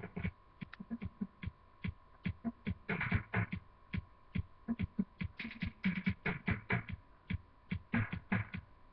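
Cartoon soundtrack music made of quick, short percussive notes, with a faint steady high tone running underneath.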